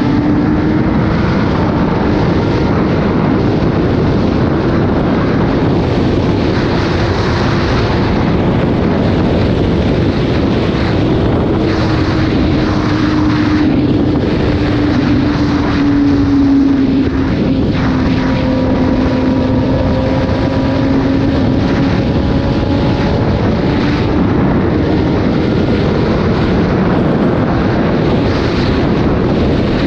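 Sport motorcycle engine running at a steady cruise, a continuous hum whose pitch drifts slightly up and down, under loud wind rush on the microphone.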